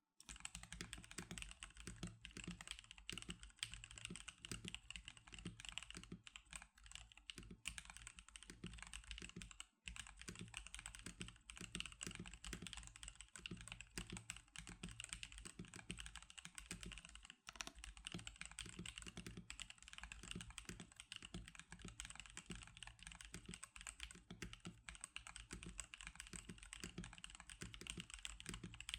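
Continuous fast typing on an NK87 mechanical keyboard with Magic Girl keycaps (SP-Star and DSA sets): a dense stream of key clicks and thocks, broken by two brief pauses, about ten and seventeen seconds in.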